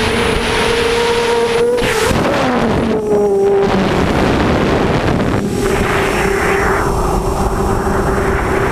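Hexacopter's six Cobra CM2208-20 2000kv brushless motors with 6-inch HQProp propellers whining in flight, under heavy wind rush on the onboard camera. About two seconds in the pitch wavers and drops, then holds steady at the lower pitch.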